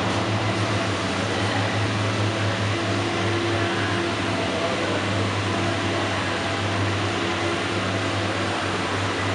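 Steady mechanical hum with a hiss, strongest in a low drone, holding even throughout.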